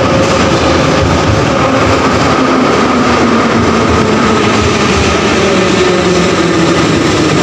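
Kharkiv Metro train of Soviet-built 81-717/714 cars running in along the platform and slowing, a loud steady rumble of wheels and motors with a whine that falls in pitch as it decelerates.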